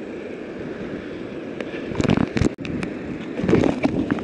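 Wind buffeting a camera in a waterproof housing in heavy rain: a low, muffled rush that swells twice, with scattered taps of raindrops on the housing.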